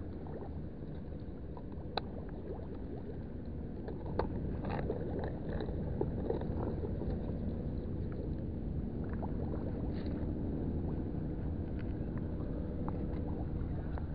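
A steady low rumble with a faint hum, broken by a few light clicks and taps. The sharpest of these come about two seconds and four seconds in.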